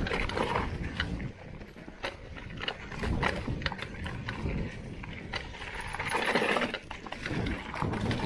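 Mountain bike clattering down a rough singletrack: a dense run of irregular knocks and rattles with tyre and gravel noise between them, loudest about three seconds in and again around six seconds in.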